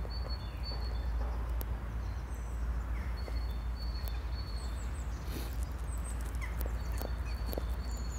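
Footsteps along a park path over a steady low rumble, with small birds calling: thin high whistles held for about half a second and short chirps, several times.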